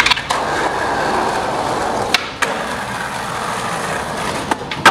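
Skateboard on concrete ledges: a steady rough rolling and grinding noise broken by sharp clacks of the board popping and landing, three pairs of them.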